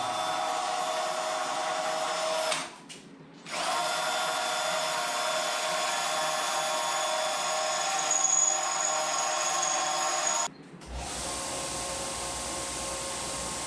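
Power drill running at a steady speed, drilling out rivets in sheet-steel body panels. It stops briefly twice; after the second stop it runs on with a deeper hum underneath.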